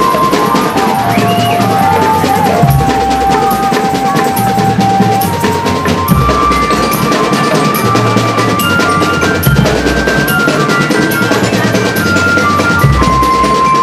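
Tong-tong drum band playing: steady, dense drumming with deep bass-drum thumps every second or two. Over it runs a high melody of held notes that step up and down.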